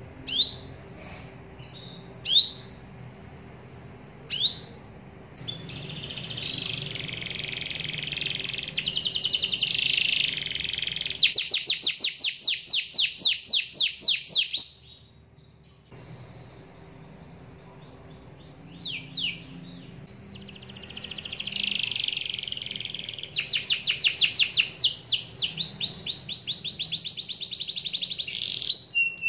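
Domestic canary singing: three short rising chirps a couple of seconds apart, then long bursts of song that run into fast rolling trills, breaking off for a second or two in the middle before starting again.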